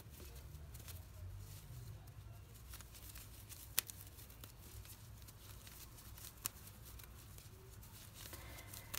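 Faint rustle of yarn being worked with a crochet hook over a low steady hum, with two small sharp clicks a few seconds apart.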